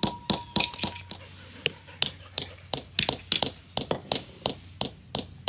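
Hammer giving a cured butternut (white walnut) on a brick paver a steady series of light taps, about three or four a second, to split the hard shell without shattering the kernel.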